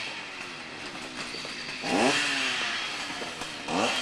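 Two-stroke chainsaw engine running, revved up sharply twice, about two seconds in and again near the end.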